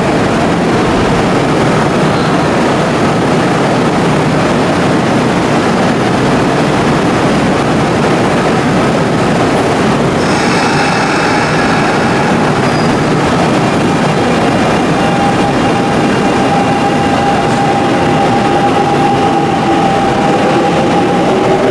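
Electric commuter train running in an underground station, with a continuous rolling rumble. High tones come in about halfway and a steady motor whine follows, then a rising whine near the end as the train gathers speed.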